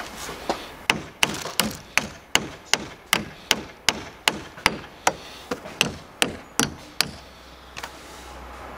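A small hammer tapping a car battery's terminal clamp down onto the battery post: about seventeen sharp, even taps, two or three a second, stopping near the end.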